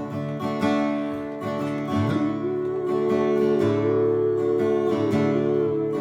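Acoustic guitar strummed in a slow country tune, with a long held melody note over it from about two seconds in.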